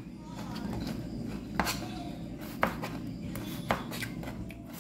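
Knife slicing cucumber on a cutting board: three sharp knocks about a second apart, over a low steady rumble.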